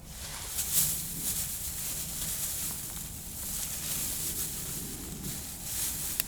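Rustling and handling noises in uneven surges, with a sharp click near the end.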